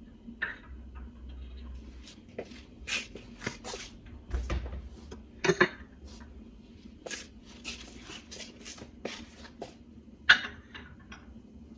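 Scattered light clinks and knocks of gold cups being handled and set onto a metal display stand and stone countertop, with sharper knocks about five and a half seconds and ten seconds in.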